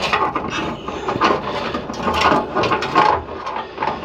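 Front-panel connector cables rattling and scraping against the PC case as they are unplugged and pulled through it by hand: a dense run of irregular clicks and rustles.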